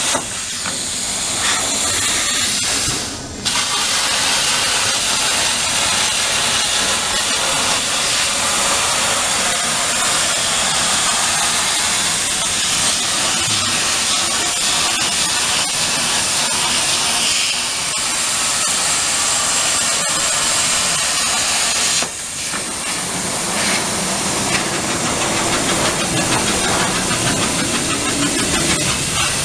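Plasma torch of a CNC plasma cutting table with a Hypertherm power source, cutting sheet metal: a loud, steady hiss of the arc and cutting air. It breaks off briefly about three seconds in and again for a moment a little past twenty seconds.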